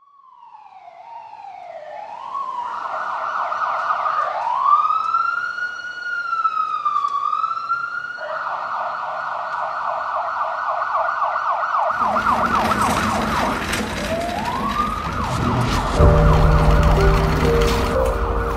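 Ambulance siren fading in, alternating slow rising-and-falling wails with a fast warbling yelp. About twelve seconds in a busy rush of noise joins it, and music comes in near the end.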